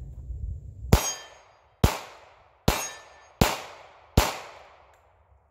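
Five shots from a North American Arms Pug .22 WMR mini revolver, fired about one a second, each a sharp crack with a fading tail. Steel targets ring thinly after some of the hits.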